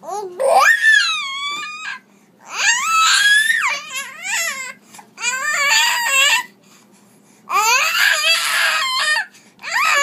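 Baby screaming in long, very high-pitched squeals, about five bouts each sliding up and down in pitch, with short breaks between.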